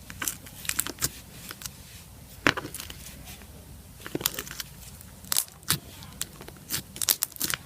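Clicky slime being squeezed and stretched by hand, making irregular sharp clicks and crackles.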